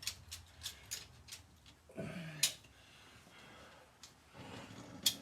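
Light metallic clicks and taps from handling a piston ring compressor band around a tractor piston's rings, with two sharper clicks about two and a half and five seconds in. A brief low grunt about two seconds in.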